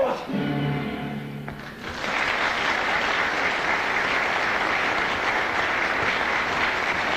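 The last held notes of a stage-musical number die away, then a theatre audience breaks into applause about two seconds in and keeps clapping steadily.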